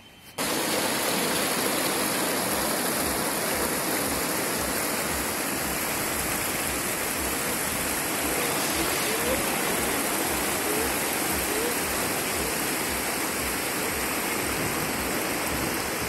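Clear mountain stream rushing over and between boulders: a steady rush of water that starts suddenly about half a second in and holds even.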